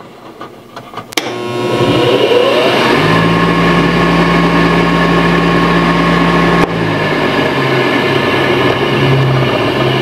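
Furnace draft inducer blower motor switched on through a relay by a humidistat: a click, then the blower spins up with a rising whine and runs steadily with a hum. About seven seconds in there is another click, and the motor sound carries on at a lower level.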